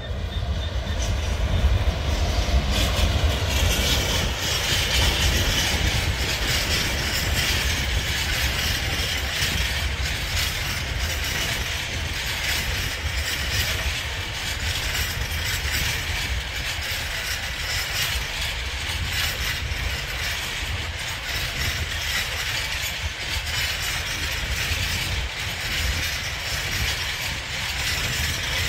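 GBRf Class 66 diesel locomotive (two-stroke EMD V12) going past, loudest in the first few seconds, followed by a long rake of box wagons rolling by with a steady wheel rumble and clicking over the rail joints.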